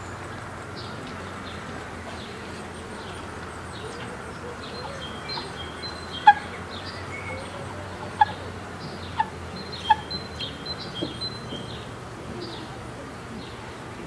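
Songbirds chirping and singing throughout, over a steady low hum. Four short, sharp bird calls stand out between about six and ten seconds in.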